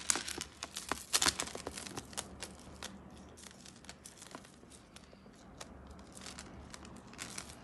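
Gold-plated metal beads of a multi-strand necklace clicking and rustling against one another as the strands are lifted and handled. There is a dense run of light clicks in the first two seconds, then scattered clicks.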